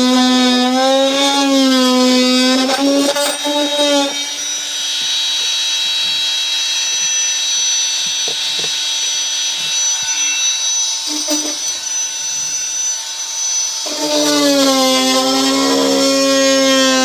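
A handheld power tool cutting plastic, running with a strong hum whose pitch wavers as it bites into the material. From about four seconds in it goes quieter and hissier, then comes back to the full hum near the end.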